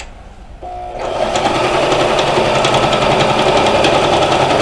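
Elna 220 sewing machine starting up about half a second in, then from about a second in running steadily at speed with a rapid, even stroke as the needle sews through ten layers of denim without slowing.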